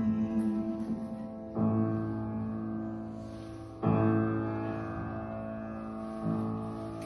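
Piano-style keyboard accompaniment playing slow, sustained chords. A chord is already ringing, then three more are struck and left to fade, closing out the song after the singing has ended.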